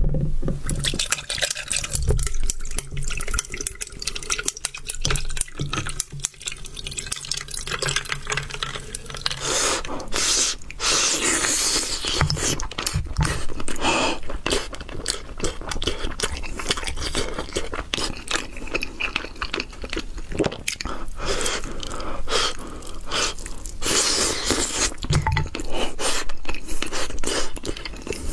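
Fresh orange juice being made from halved oranges, with juice dripping and trickling over ice. Later, close-miked eating sounds: chewing and wet mouth noises.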